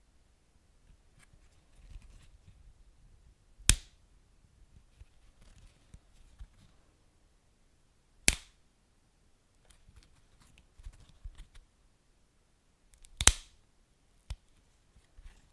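Wood fire crackling, with faint small ticks and three loud, sharp pops of the burning wood: one about four seconds in, one about eight seconds in, and one about thirteen seconds in.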